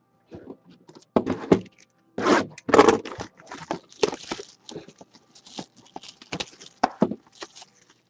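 Cellophane shrink-wrap crinkling and tearing as it is stripped off a sealed trading-card box, in irregular bursts of rustling that are loudest in the first three seconds.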